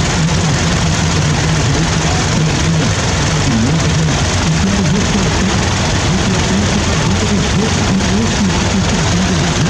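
Diesel engines of several Massey Ferguson 4275 tractors running together, loud and unbroken, their pitch wavering up and down as the engines rev a little.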